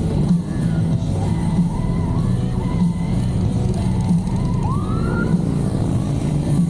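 Motorcycle engines running in a group ride, mixed with music. About five seconds in, a short rising siren whoop sounds.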